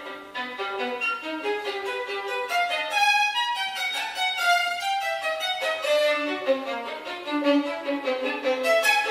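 Solo violin played with the bow in a fast contemporary passage, a continuous run of short notes jumping between pitches.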